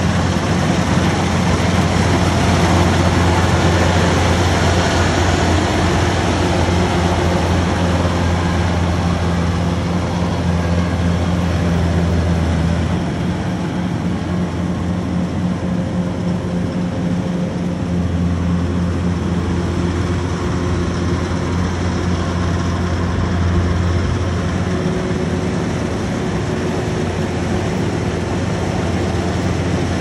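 Kubota DC-105X rice combine harvester's diesel engine running steadily under load as it harvests, a continuous low drone that eases slightly about halfway through and then comes back up.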